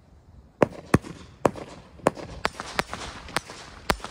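Consumer fireworks going off: a quick, uneven series of about eight sharp bangs, roughly two a second, with a hissing crackle between them.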